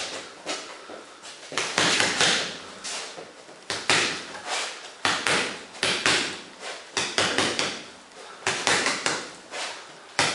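Boxing gloves punching a floor-to-ceiling ball: sharp smacks in quick combinations, often two or three close together with short gaps between, several a second.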